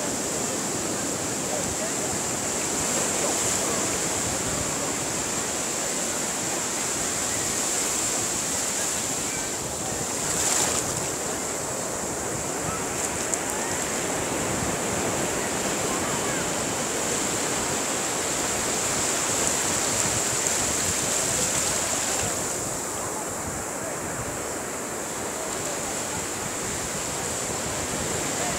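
Shallow surf washing in and out over sand, a steady rushing wash that swells and eases as each small wave comes in.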